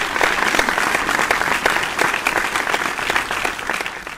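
Crowd applauding: a dense, steady clatter of many hands clapping, dying away near the end.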